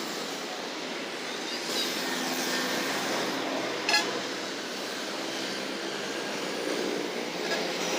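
Roadside traffic noise: vehicles passing, with a horn sounding. A single sharp click about four seconds in.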